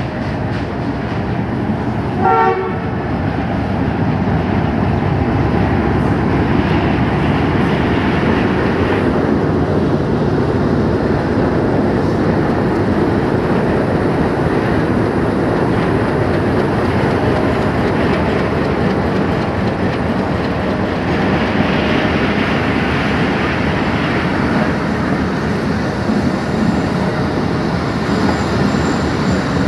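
Short horn blast from a diesel locomotive about two seconds in, then the locomotive's engine running and the coaches' wheels rolling and clicking over the rails as the passenger train pulls out past close by.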